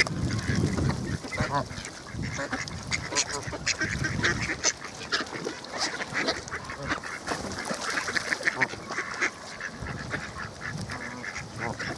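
A mixed flock of mallards and Canada geese calling, quacks and honks, among many short sharp clicks throughout.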